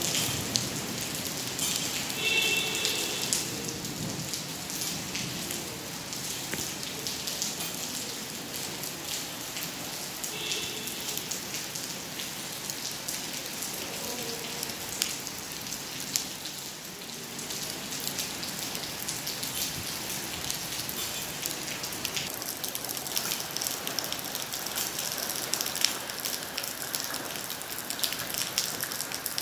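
Heavy monsoon rain pouring steadily, a dense hiss with many sharp spatters of drops close by.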